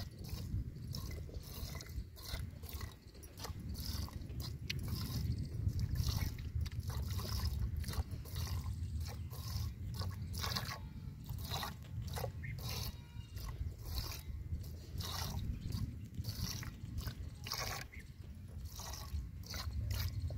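Cow being milked by hand into a steel pail: rhythmic squirts of milk hitting the pail, about two a second.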